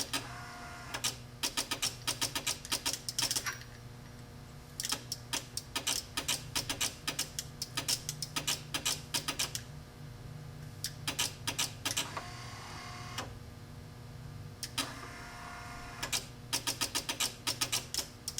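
Automotive relays chattering in bursts of rapid clicks over the steady hum of an electric wiper motor running on the bench. The owner puts the relay clicking down to a power supply that only delivers 1 amp, along with a bad ground connection.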